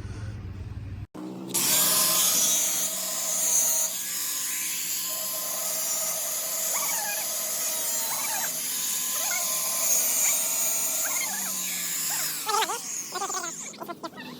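Angle grinder with a cutting disc cutting steel exhaust pipe: a steady, high-pitched grinding whine that starts about a second in and shifts in pitch as the disc bites, easing off near the end.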